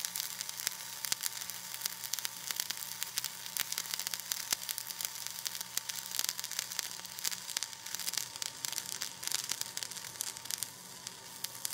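Flux-cored arc welding: the arc of a flux-core wire gun running a cap pass on steel plate, giving a steady, dense crackle over a hiss.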